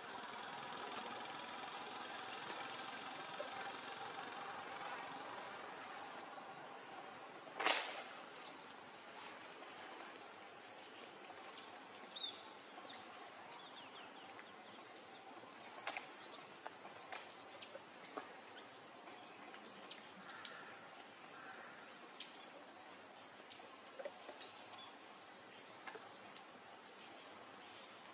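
Steady high-pitched drone of insects, with scattered short chirps and clicks over it. A single sharp click about eight seconds in is the loudest sound.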